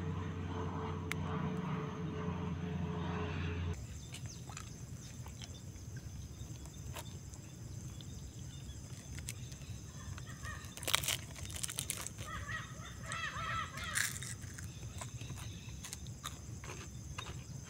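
A steady engine hum cuts off about four seconds in. Then comes an open outdoor background with scattered small clicks, and a bird's harsh, repeated calls about two-thirds of the way through and again briefly near the end.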